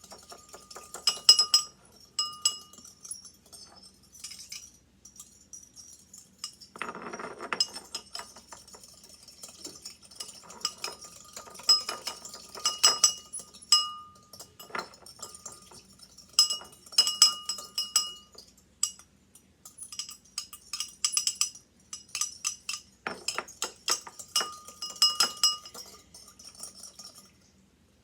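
A small fork stirring baking soda into warm water in a bowl to dissolve it. It clinks against the bowl in quick runs of ringing taps, with short pauses between the runs.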